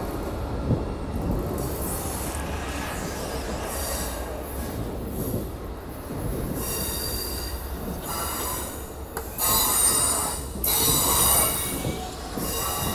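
Amtrak Superliner passenger cars rolling slowly past with a steady low rumble. From about halfway on, steel wheels squeal shrilly on the rails in several loud bursts.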